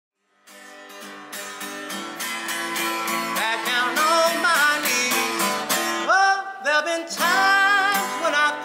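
Acoustic guitar music, strummed and picked, starting about half a second in, with a singing voice joining in from about three and a half seconds in.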